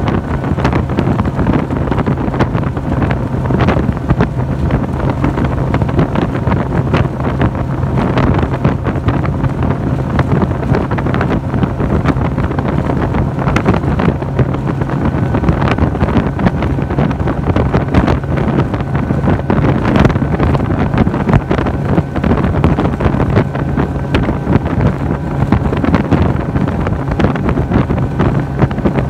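Bass boat under way: the outboard engine runs with a steady, even drone while wind buffets the microphone in constant gusts.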